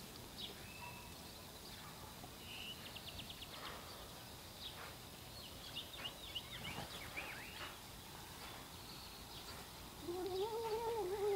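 Faint high chirps and short trills, then about ten seconds in a domestic cat starts a louder, drawn-out moaning yowl with a wavering pitch. This is the odd noise the cat makes while eating wet canned food.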